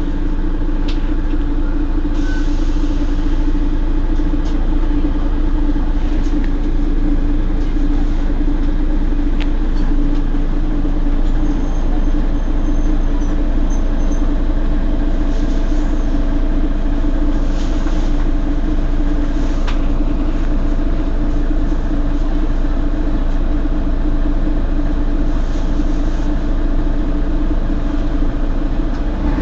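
Mercedes-Benz Citaro G C2 articulated bus idling at a stop: a steady engine hum with a strong low tone.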